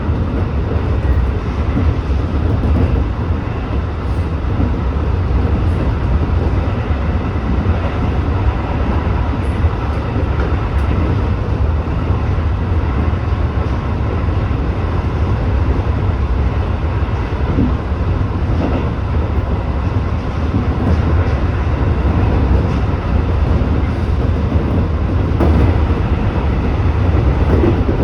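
Tobu 8000-series electric train running along the line: a steady rumble of wheels on rail and running gear, heaviest in the bass, with a few faint clicks in the second half.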